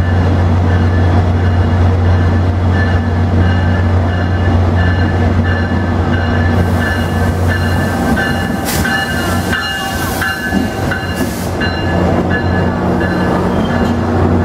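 GO Transit MP40PH-3C diesel locomotive pulling slowly into the platform and passing close by, its engine a steady deep drone with a few fixed higher tones over it. About nine to eleven seconds in, as the locomotive goes by, there are several short high hisses.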